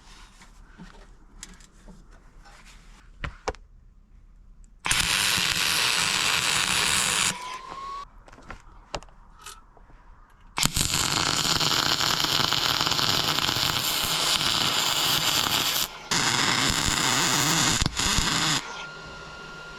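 Three loud bursts of steady hissing, like a pressurised spray or air jet, each lasting a few seconds and starting and stopping abruptly. Quieter clicks and knocks fall between them.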